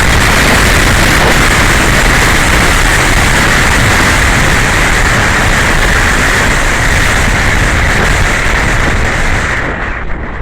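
Loud, steady rushing noise with a high hum, as picked up by a mini action camera's built-in microphone on a model RC plane: wind over the mic, and the plane's motor and propeller.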